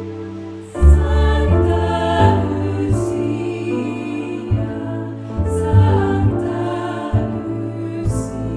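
A women's vocal group singing in harmony with piano accompaniment, holding long chords that change about once a second.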